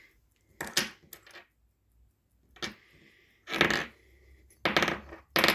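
Short metallic clicks and rattles from a Pfaff 204 sewing machine's mechanism being worked by hand, about six separate clatters a second or so apart.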